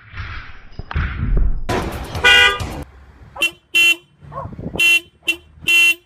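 Car horn of an SUV sounded in short beeps, about five in the last three seconds, by a dog sitting in the driver's seat. Before the beeps, a couple of seconds of noisy rustling with one short loud tone.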